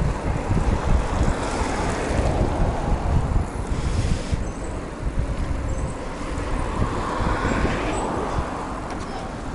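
Wind buffeting the microphone on a moving bicycle: a steady low rumble of wind and rolling noise, swelling a little about two seconds in and again near eight seconds.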